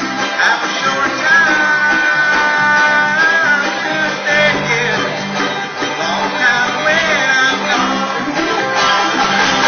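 An acoustic old-time string band playing a country tune, with plucked guitar and clawhammer banjo under a melody line that holds one long note and slides off it.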